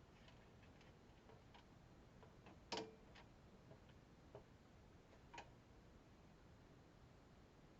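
Faint, irregular clicks and taps of computer hardware being handled during a teardown, with one sharper click a little under three seconds in and another about five and a half seconds in.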